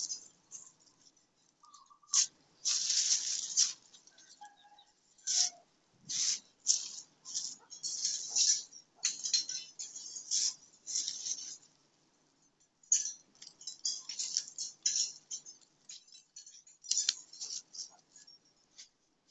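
Thai basil stems and leaves rustling as bunches are picked up and sorted by hand. The rustling comes in irregular bursts with short quiet pauses between them.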